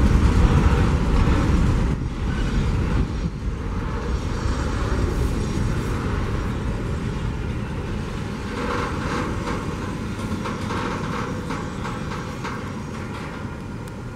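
Freight train rolling past on the rails, a steady noise of wheels and cars on track that slowly grows fainter.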